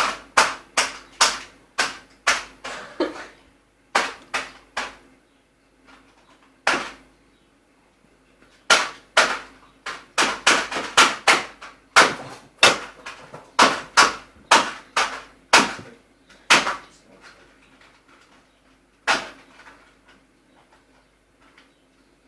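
Repeated sharp knocks or taps, about two or three a second, in runs of several seconds with gaps between, over a faint steady hum.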